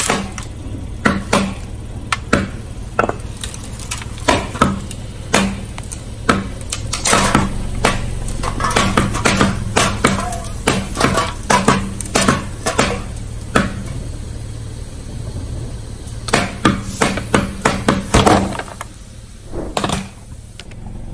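Aluminium drink cans crunching and popping one after another as a car tyre rolls over them and crushes them, bursting them open so the soda spills out. The cracks come irregularly, several a second at times, over a steady low hum, and thin out near the end.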